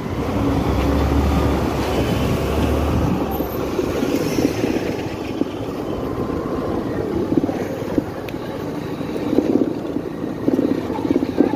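Motorcycle riding through street traffic, heard from the pillion seat: steady engine and road noise, with trucks and buses passing close alongside. A deep low rumble stands out in the first few seconds.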